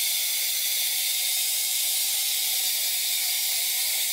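Steady high hiss of helium gas rushing through a fill hose into the neck of a high-altitude weather balloon being inflated.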